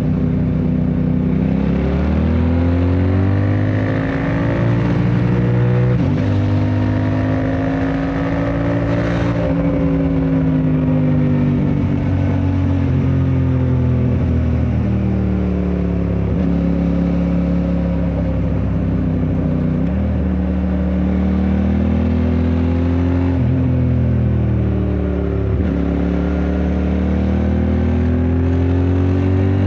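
QJ Motor SRT 600SX motorcycle engine being ridden, its revs rising and falling again and again as the rider accelerates and shifts, with several sharp drops in pitch.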